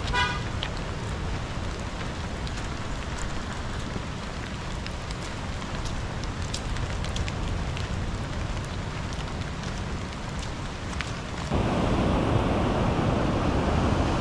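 Wind rumbling on the microphone with scattered light crackles of footsteps on a leaf-covered dirt trail. About eleven and a half seconds in, it changes abruptly to the louder, steady rush of surf washing over and tumbling the round stones of a cobble beach.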